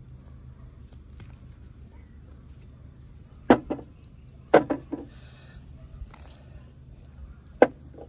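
Potatoes being dropped into a bucket: sharp knocks, two about three and a half seconds in, a quick run of three a second later, and one more near the end.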